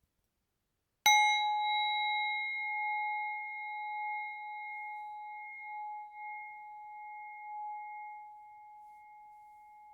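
A metal bowl bell, a singing bowl or rin gong, struck once about a second in. It rings on one clear tone with higher overtones, wavering slightly as it slowly fades.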